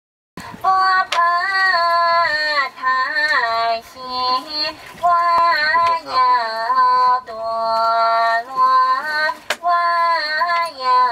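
A high voice singing a melody, with long held notes and short breaks between phrases.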